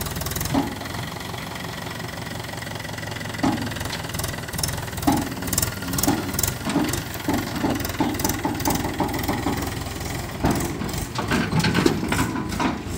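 Mahindra 475 DI tractor's diesel engine running as the tipping trailer's bed comes down. Scattered metal knocks and clatters join in from a few seconds in and grow busier near the end as the empty steel trailer is pulled over rough ground.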